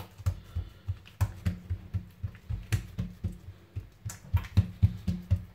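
Hand patting and pressing oiled msemen dough flat on a table: a quick, even series of soft low thumps, about four a second.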